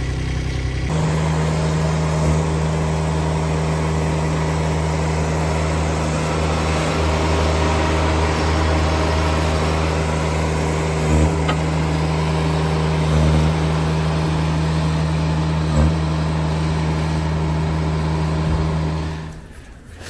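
Mini skid steer's engine running steadily at an even pitch, with a few short knocks, dying away near the end.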